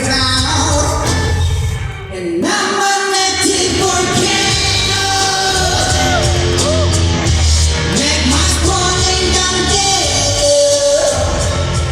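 Live concert performance: a sung vocal line with gliding notes over loud, amplified, bass-heavy backing music. The bass drops out briefly about two seconds in, then comes back.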